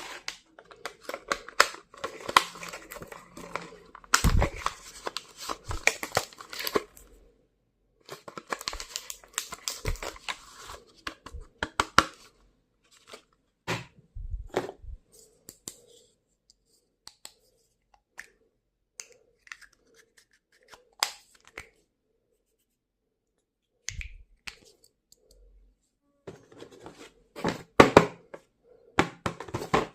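Stationery packaging being torn and crinkled open by hand: rustling and tearing in bursts with scattered clicks and taps between, the loudest handling coming just before the end.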